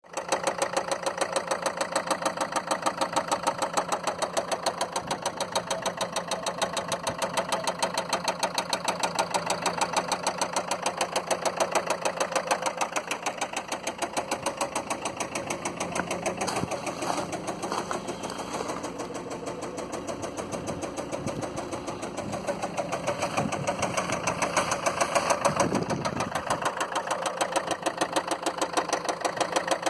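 Land Rover Freelander 2's four-cylinder diesel engine running with a noisy, even knocking clatter, which the owner suspects comes from faulty injectors.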